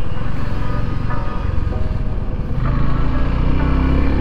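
Suzuki V-Strom SX 250's single-cylinder engine running as the motorcycle rides along, heard from the rider's seat, its pitch rising a little in the second half as the bike speeds up.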